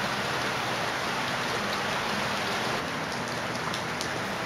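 Rain falling, a dense steady hiss; a little under three seconds in it thins slightly and separate drops can be heard ticking.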